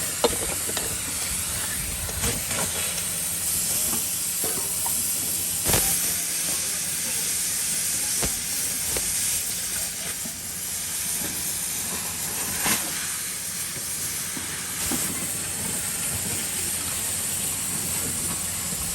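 Steady hissing noise of steel-scrap factory work, with a low hum underneath and about half a dozen sharp metallic knocks scattered through it, the loudest about six seconds in.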